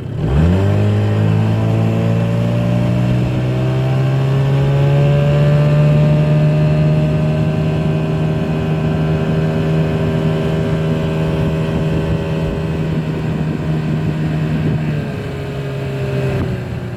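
20 hp Mercury outboard motor throttled up hard from slow speed: the revs jump at once, then keep climbing for several seconds as the small hull gets up on plane with a hydrofoil fin on the motor. The engine then runs steady at speed and eases off slightly near the end.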